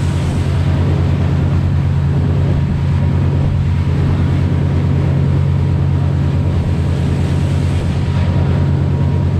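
Fishing boat under way: its engine runs steadily with a fast, even low hum, with water rushing along the hull and wind buffeting the microphone.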